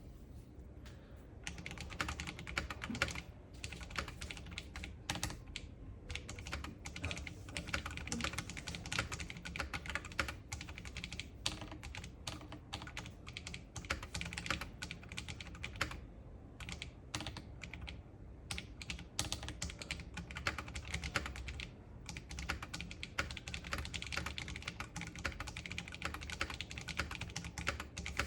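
Typing on a Matrix Abel x PenPen custom mechanical keyboard: fast, steady keystrokes clacking, with a few brief pauses.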